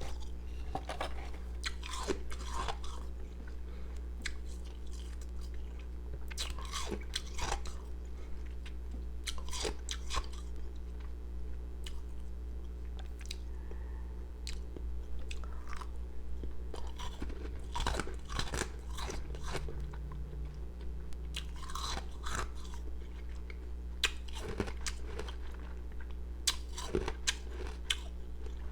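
A person biting and chewing pieces of powdery, carbonated ice, in crisp crunches that come in clusters every few seconds, over a steady low hum.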